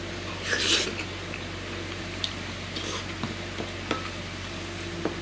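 Eating with a metal spoon from a ceramic bowl of egg-and-chive ankake over rice: a short slurping mouthful about half a second in, then a few light spoon clinks and scrapes against the bowl.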